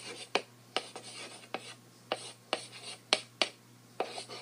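Chalk writing on a blackboard: sharp scratching strokes and taps, about two or three a second, over a faint steady low hum.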